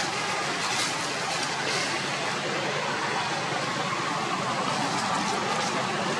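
Steady rushing outdoor background noise, with a few faint clicks in the first two seconds.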